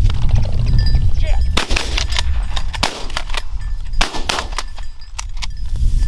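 Two shotgun shots fired at a flushed pheasant, about two and a half seconds apart.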